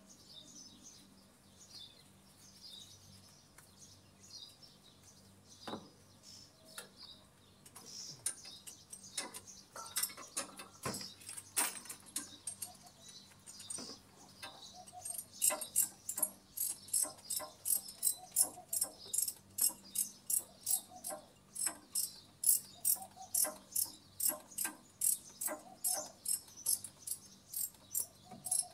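Birds chirping softly, then from about halfway a steady run of sharp metallic clicks, about three a second, from a ratchet wrench being worked on a bolt in a car's engine bay.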